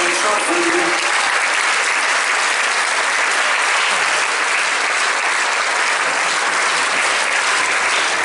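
Theatre audience applauding steadily, a dense clapping that holds at the same level throughout.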